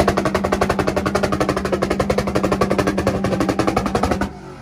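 Car engine revved up onto a two-step launch limiter and held at one steady pitch, the exhaust popping and banging in a rapid machine-gun rattle. It cuts off suddenly near the end.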